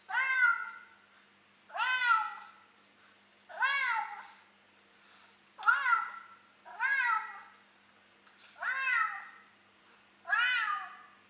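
A cat meowing over and over: seven meows, each rising then falling in pitch, about one every one and a half to two seconds.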